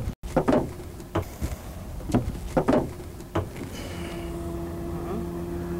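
A few short knocks and handling noises, then about four seconds in a boat motor's steady hum comes in and keeps running.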